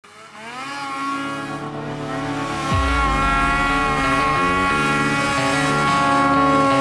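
Music with sustained chords that change every second or so, opening with a rising slide and a heavy bass coming in just under three seconds in.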